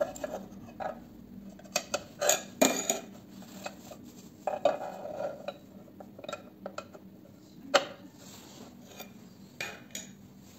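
A cuvette of distilled water clicking and knocking against its holder and the sample chamber of a desktop spectrophotometer as it is set in place for white calibration. Scattered sharp clicks and clinks, the loudest about two and a half seconds in and again nearly eight seconds in.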